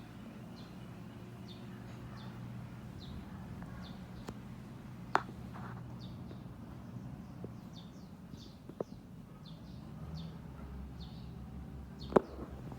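Small birds chirping, short high chirps repeating about once a second, over a steady low hum, with a few sharp clicks, the loudest near the end.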